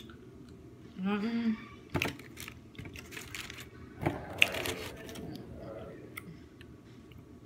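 A short hum of the voice about a second in, then sharp clicks and short bursts of rustling from handling lunch packaging, loudest around four to five seconds in.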